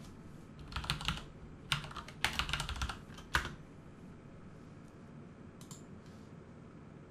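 Typing on a computer keyboard: several short bursts of keystrokes, ending about three and a half seconds in.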